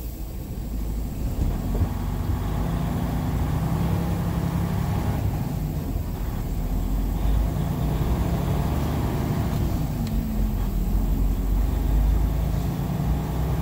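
Semi-truck diesel engine running, heard from inside the cab, its pitch shifting as the truck is moved forward.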